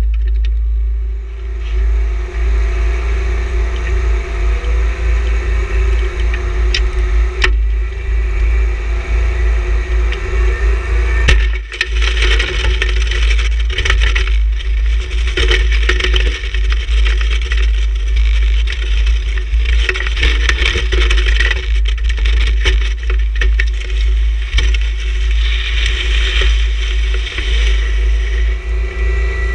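John Deere 1026R sub-compact tractor's three-cylinder diesel engine running steadily under load while a snow pusher blade scrapes along and shoves a mass of snow. The scraping and hiss of the snow grow heavier from about twelve seconds in, with a couple of sharp knocks before that.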